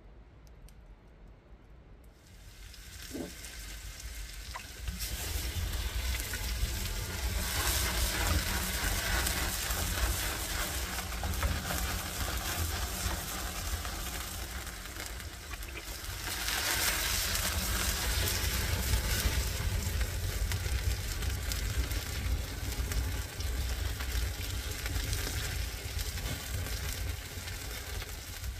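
Sliced onions frying in oil in a pan over an open wood fire, a steady sizzle that starts about two seconds in and swells louder twice.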